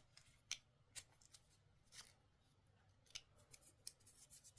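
Faint, sharp clicks and taps of a Zippo lighter being handled and fitted into a plastic case: a handful of separate clicks, then a quicker run of them near the end.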